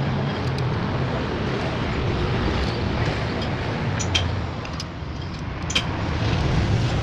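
Steady road-traffic rumble, with two sharp metallic clicks about four and six seconds in from hand tools as the ignition-coil bolts are fastened.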